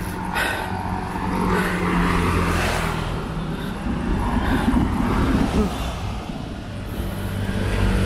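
A road vehicle's engine running steadily while on the move, with wind rushing over the microphone.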